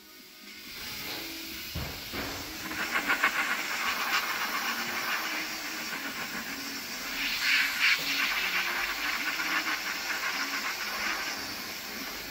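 Pneumatic tool on a compressed-air hose running with a loud hiss, with a fast, even rattle through parts of it.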